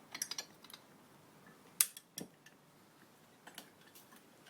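Small metal clicks and clinks of an Allen key, tiny screws and brackets while a chromed lid is taken off. A cluster of light clicks comes first, the sharpest click a little under two seconds in, then a few lighter ones.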